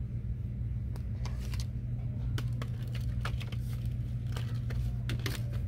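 A steady low hum with scattered small clicks and crinkles, as of packaged goods and the cart being handled.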